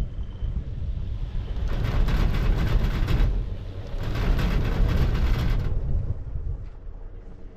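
Gondola cabin riding the haul rope, with a low rumble throughout. From about two seconds in, the cabin's grip runs over the pylon's roller sheaves, a louder rattling rumble that lasts about four seconds and then dies back down.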